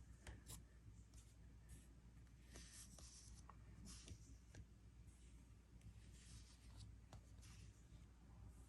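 Faint rustling and sliding of comic books being handled and sorted, a series of short swishes with a few light clicks and taps.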